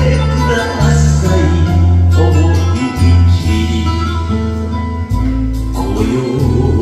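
A man singing an enka song into a karaoke microphone over a karaoke backing track with a heavy, steady bass line.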